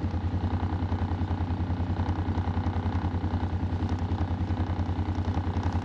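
Vehicle engine idling steadily, with an even low pulse.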